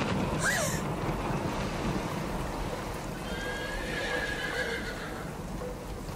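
A horse whinnying: a short rising-and-falling call about half a second in, then a longer drawn-out whinny from about three to five seconds in, over a steady rushing noise.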